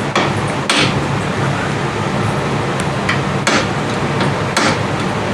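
Hammer blows on steel, irregularly spaced: four hard strikes and a few lighter taps, driving out the pivot pin of a hydraulic lift cylinder, over a steady hum.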